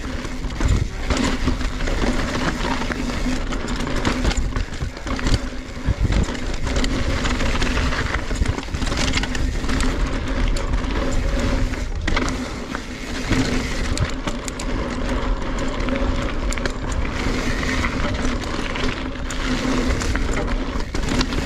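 NS Bikes Synonym mountain bike ridden fast down a dirt and rock singletrack: tyres rolling and crunching over the ground, with frequent knocks and rattles from the bike over bumps and a steady hum underneath.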